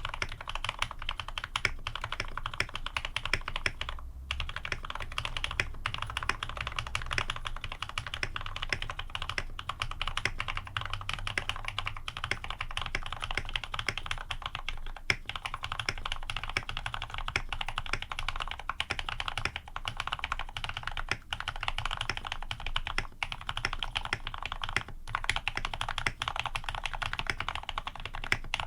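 Fast, continuous typing on a custom-tuned Ar87 mechanical keyboard: lubed linear switches (Cherry retooled black housings with cream stems, 70 g springs) on an aluminium plate under PBT keycaps. The keystrokes come in a dense, steady stream with only a couple of brief pauses.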